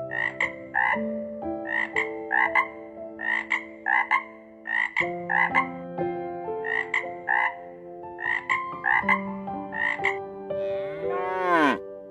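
An animal calling in short, clipped pulses, mostly in pairs, repeated throughout over soft sustained background music; near the end comes one longer call that sweeps up and then down in pitch.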